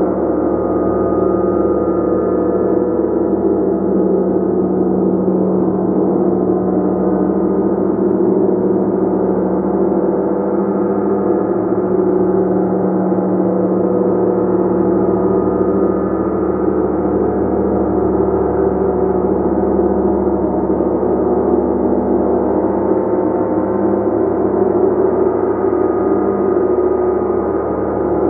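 Gong played continuously, its overlapping tones building into a steady, loud, shimmering wash with no pause between strokes.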